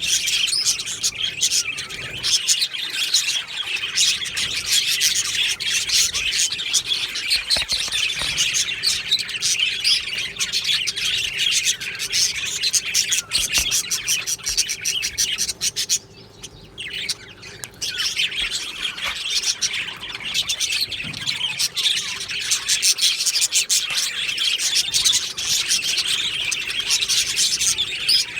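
A flock of budgerigars chirping and warbling, many rapid calls overlapping in continuous chatter. The chatter drops away for about a second and a half some sixteen seconds in, then resumes.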